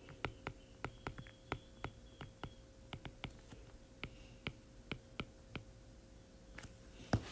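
A stylus tip tapping and clicking on an iPad's glass screen during handwriting: light, irregular clicks a few per second, with two louder taps near the end, over a faint steady hum.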